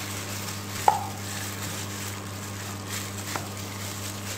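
A hand in a plastic bag squeezing flour-coated chicken pieces in a metal bowl. About a second in, the chicken knocks against the bowl with a short metallic ring, and a fainter knock follows near the end.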